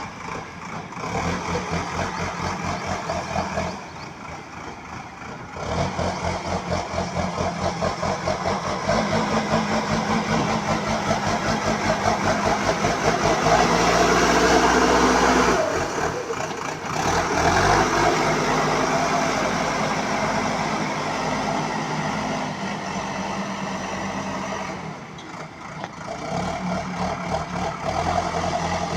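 Diesel engine of a BULL HD 76 backhoe loader running, its speed and load rising and falling repeatedly, loudest about halfway through.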